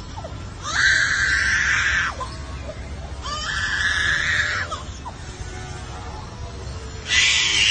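A bird giving long wailing calls that sound like a baby crying: three drawn-out cries, each over a second long, the last coming near the end.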